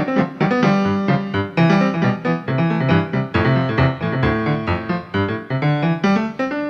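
Keyboard music played on an Ensoniq ASR-10 sampler from a sound-library patch, taken straight from its outputs: a quick run of pitched notes and chords over a moving bass line.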